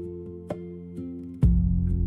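Background music: gentle plucked guitar notes over sustained tones, with a fuller low chord coming in about one and a half seconds in.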